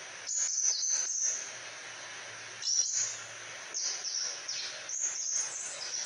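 Male crimson sunbird singing: four short bursts of high, thin twittering phrases with brief pauses between them, over a steady background hiss.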